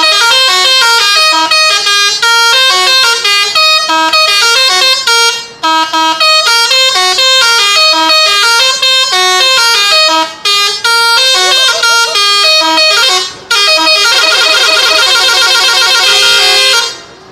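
Loud telolet horn on a Saztro Holiday bus, an array of electrically switched air-horn trumpets, playing a melody of quick stepping notes with a few short breaks. About 14 seconds in it switches to a fast warbling trill.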